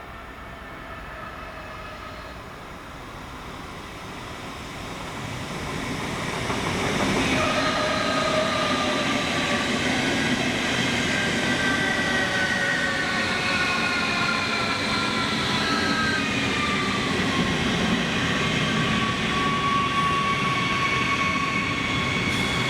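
Rhein-Ruhr-Express Siemens Desiro HC electric multiple unit braking as it comes in. Its traction drive whines in several tones that fall slowly in pitch as the train slows. The sound grows loud about six seconds in over a rolling rumble.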